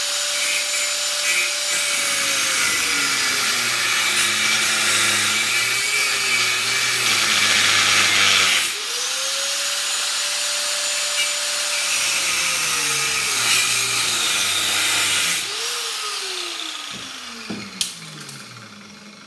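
Corded angle grinder spinning up and cutting through a seized steel nut on a vacuum cleaner motor shaft, its whine dropping in pitch under load over a harsh grinding hiss. It stops and spins up again about nine seconds in for a second cut across the nut, then is switched off and winds down with a falling whine.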